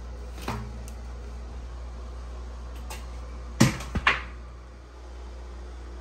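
A new fibreglass air filter is handled and fitted into a return-air grille, and the grille is pushed shut: a few light clicks, then a quick cluster of sharp knocks about three and a half seconds in. A steady low hum runs underneath.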